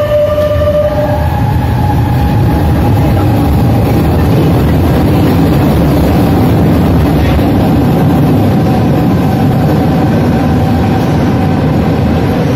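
Milan Metro Series 8000 train pulling out of an underground station and running away along the platform: a steady loud rumble of wheels on rail with a held electric whine, echoing in the station.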